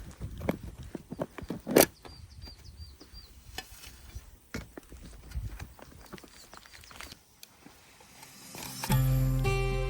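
Small wood fire burning in a compact folding wood stove, crackling and snapping irregularly, with one sharp pop about two seconds in. Acoustic guitar comes in near the end.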